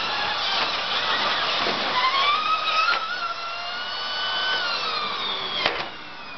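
Nilfisk canister vacuum cleaner running, its motor whine with a rough rattle in the first few seconds as it sucks up scraps of paper. Near the end there is a sharp click, and the whine drops and falls steadily in pitch as the motor spins down.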